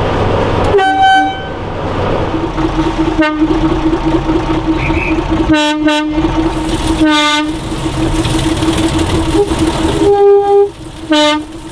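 A small narrow-gauge diesel locomotive's engine runs steadily while its horn gives short toots, about seven in all, several of them in quick pairs.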